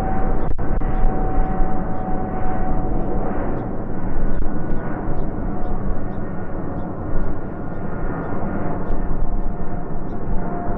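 Boeing 777's twin jet engines at takeoff power as it climbs out: a loud, steady roar with a faint whine held through it.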